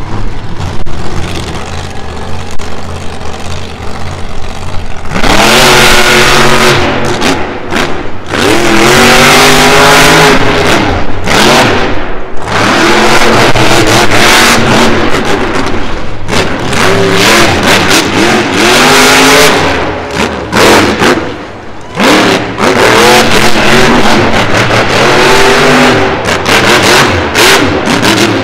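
Monster truck engine revving hard in repeated surges, its pitch climbing and dropping again and again over a loud rumble. It is lower and steadier for the first five seconds, then breaks into the full-throttle runs.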